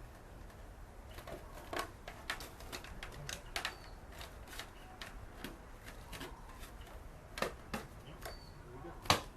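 Irregular light clicks and knocks of wiring and plastic parts being handled and fitted on an electric mobility scooter, with the loudest knock near the end.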